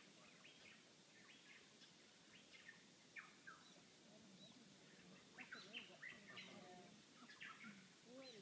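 Birds chirping faintly in short, high calls, which come more often in the second half.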